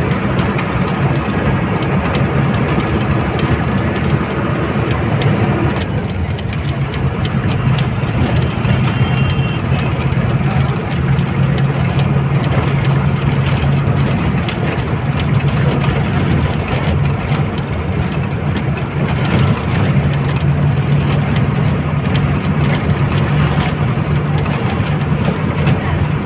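Old Tata bus's diesel engine running steadily as the bus drives along the highway, a constant low drone with road noise; its note shifts about six seconds in.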